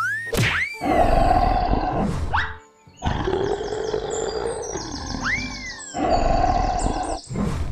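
Cartoon dinosaur roar sound effects: three loud roars, each lasting one to three seconds, with short rising whistle glides between them, over background music.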